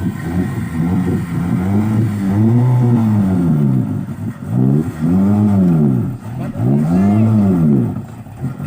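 Off-road vehicle's engine revved hard again and again, its pitch climbing and dropping about four times, as the car is driven out under recovery.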